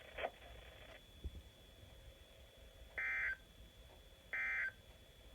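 NOAA Weather Radio SAME end-of-message data tones: two short, identical bursts of electronic warble about a second and a half apart in the second half, signalling the end of the weekly test broadcast.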